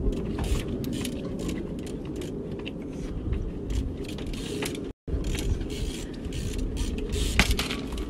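Trials bike clicking and knocking as it is hopped up rocks: sharp ticks from the drivetrain and tyres and pedals striking stone, over a steady low rumble. The sound drops out for an instant about five seconds in, and the loudest knock comes near the end.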